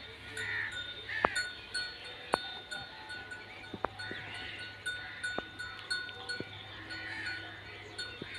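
Goats in a pen, with faint calls now and then, a thin bell-like ringing that comes and goes, and several sharp clicks.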